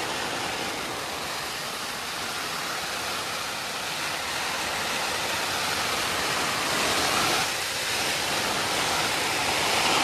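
Water from a garden hose spraying onto a Fjallraven Abisko 1 tent's flysheet, heard from inside the tent as a steady rush like heavy rain, with a brief dip about seven and a half seconds in.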